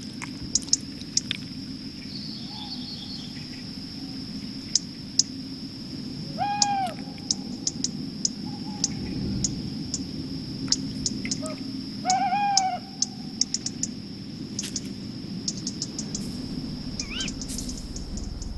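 An owl calls twice, about six seconds apart, each call a short note that rises and falls. Under the calls are a steady high tone, a low hum and scattered small ticks.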